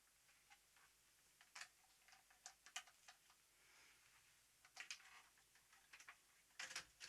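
Near silence with faint, irregular clicks and taps scattered through it.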